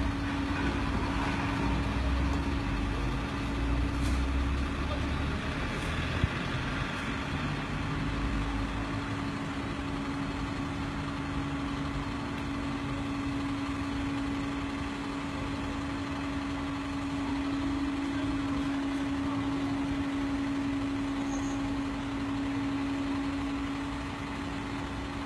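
A vehicle engine idling, with a steady hum over street noise, and a sharp click about six seconds in.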